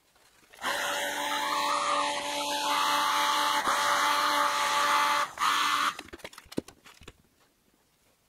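Heat gun blowing hot air with a steady motor hum, softening a warped 3D-printed plastic pattern so it can be clamped flat. It starts about half a second in and stops about six seconds in. A few light clicks and knocks follow as small bar clamps are set on the pattern.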